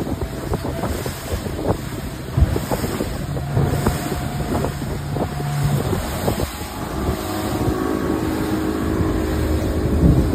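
Speedboat engine running under way, with wind buffeting the microphone.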